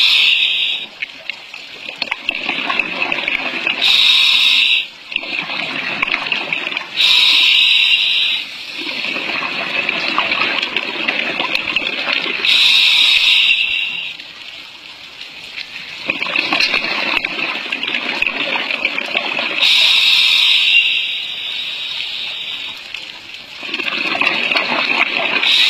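Scuba diver breathing through a regulator underwater: a hissing inhale every few seconds alternating with the bubbling rush of exhaled air.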